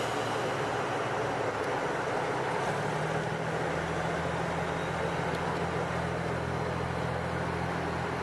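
JR Central KiHa 85 series diesel railcars' engines running with a steady drone and rumble as a train moves along the platform tracks. A deeper, stronger engine note comes in about three seconds in.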